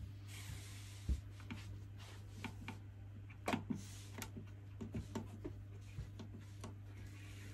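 Steady low electrical hum from the running Panasonic NV-VP31 DVD/VHS combo and TV, with scattered light clicks and taps, the loudest about a second in and twice around three and a half seconds in.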